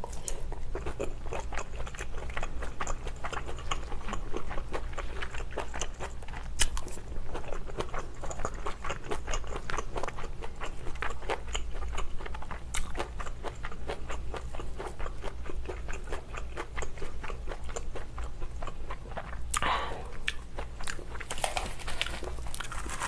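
Close-miked chewing and biting of a mouthful of Vienna sausage and kimchi jjim, many small clicks. About twenty seconds in, louder crinkling as a sheet of dried laver (gim) is picked up.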